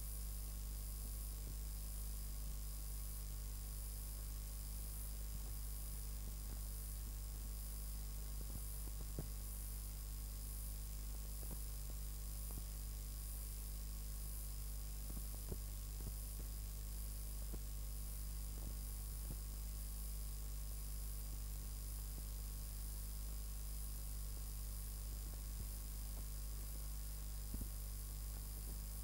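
Steady low electrical hum with faint hiss from a blank stretch of videotape, with a few faint clicks.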